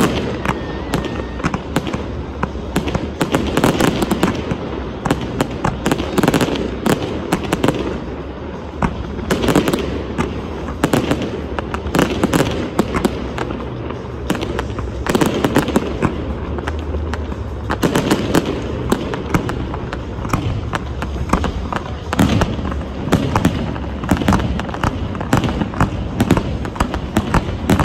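Aerial fireworks display: a dense, continuous string of bangs and crackles from bursting shells.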